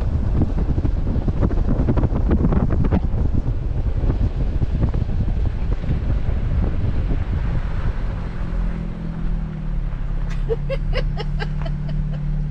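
Wind buffeting a vehicle-mounted action camera's microphone while an off-road vehicle drives a dirt trail, with tyre and engine rumble underneath. About two-thirds of the way in the buffeting eases and a steady low engine drone comes through, with a quick run of small chirps near the end.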